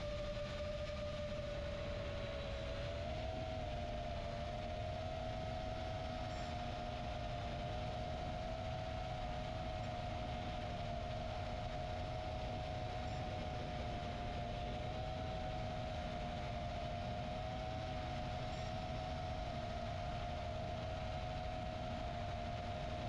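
Whine of a 4-inch FPV quadcopter's motors and three-blade props in flight, a steady tone that wavers slightly and steps up a little in pitch about three seconds in, over a low rumble.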